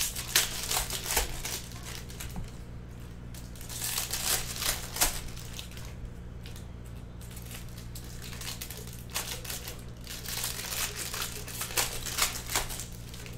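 Foil wrappers of trading-card packs crinkling and tearing as the packs are ripped open and the cards slid out, in bursts every few seconds. A steady low hum sits underneath.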